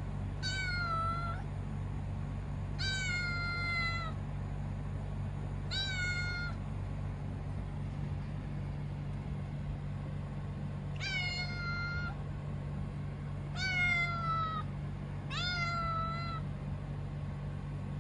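Kitten meowing six times in high, thin calls, each about a second long and dipping slightly in pitch, with a pause of several seconds after the third. A steady low hum runs underneath.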